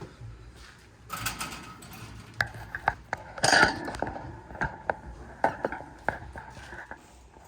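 Irregular clicks, taps and light clatter of objects being handled in a small room, with a louder scraping burst about three and a half seconds in.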